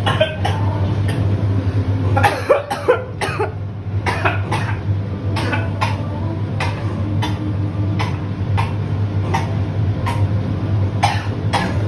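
A person coughing over and over in short, stifled bursts, about one or two a second with a tighter run of them about two to three seconds in: someone trying to hold back a cough. A steady low hum runs underneath.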